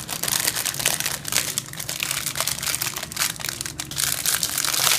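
Clear plastic snack bags crinkling and crackling continuously as hands handle them and lift them out of a cardboard box.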